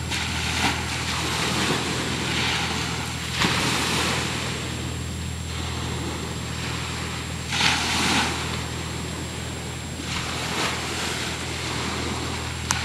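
A motorboat's engine hums steadily while water splashes against the hull in several short rushes, the loudest about eight seconds in.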